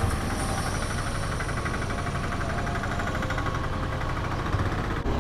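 KTM 390 Adventure's single-cylinder engine idling steadily, amid other idling traffic.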